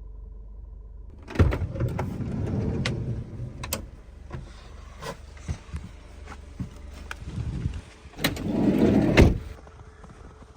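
Camper van door being opened with a sharp clunk and a rush of sliding, then scattered clicks and knocks, and the door drawn shut again with a hard knock near the end.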